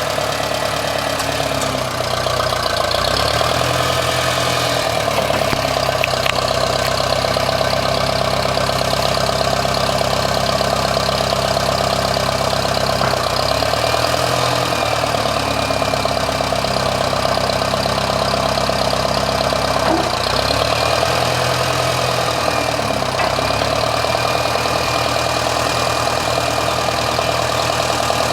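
An engine running steadily, its pitch shifting briefly a few times.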